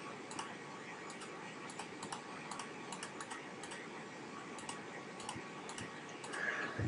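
Computer mouse button clicking about a dozen times at an irregular pace, each click entering one key on the Windows on-screen keyboard, faint over a steady hiss.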